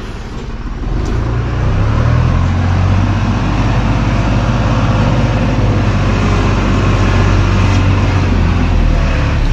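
A motor vehicle's engine running close by, a steady low drone that grows louder about a second in and then holds.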